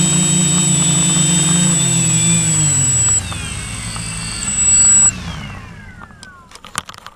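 Drone's electric motors and propellers whirring steadily, then falling in pitch and winding down to a stop, with one brief louder burst of throttle on the way down. A few sharp clicks come just as it goes quiet.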